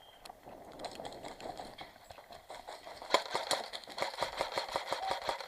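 Airsoft guns firing: a rapid run of sharp clicks and pops, sparse at first and growing denser and louder about three seconds in.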